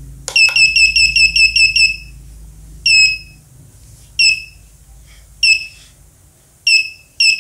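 A button click, then the homemade Arduino math-practice machine's electronic buzzer plays a rapid run of about ten short high beeps, signalling a correct answer. Single beeps of the same pitch follow about every second.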